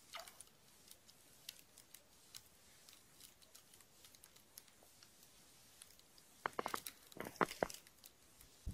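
Quiet, with faint scattered clicks and light crunches from an ice angler jigging a short rod and reel over the hole, then a quick cluster of sharper clicks and crunches about six and a half seconds in.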